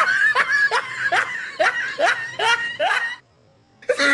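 Laughter in quick rising 'ha's, about three a second, breaking off about three seconds in; near the end a long held high note starts the laugh again.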